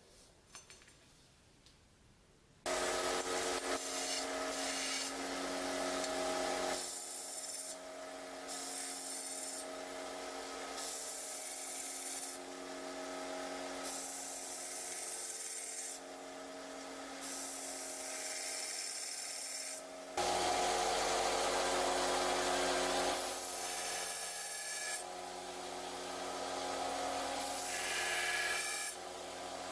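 Electric power tool running with an abrasive rubbing, grinding sound as it works the material. The sound starts suddenly after about two and a half seconds of quiet and then jumps abruptly in level and tone every few seconds.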